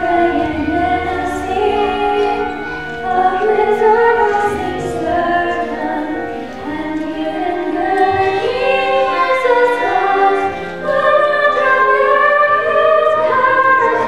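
Middle-school chorus singing a choral stage-musical number in held, overlapping vocal lines, with musical accompaniment.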